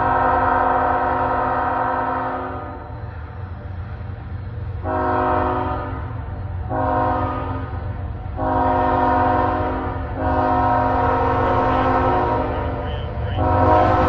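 CSX freight locomotive's multi-chime air horn sounding a series of long and short blasts as the train approaches, the first about three seconds long and a longer one near the end. A steady low rumble from the approaching train runs underneath.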